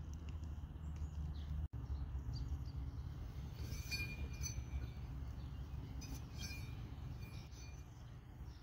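A steady low rumble, with a few light metallic clinks about four seconds in and again around six and a half seconds in, from a galvanized steel post bracket meeting the threaded cap of a screw pile.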